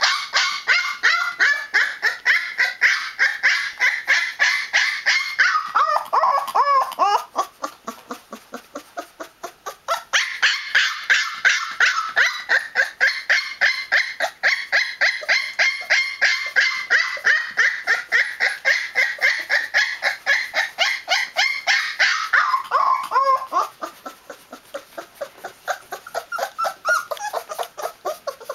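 A 20-day-old Newfoundland puppy making a noisy protest: rapid, high, repeated yelping cries, about five a second. The cries come in two long loud bouts, each sliding down in pitch and dropping to softer cries, the first about six seconds in and the second near the end.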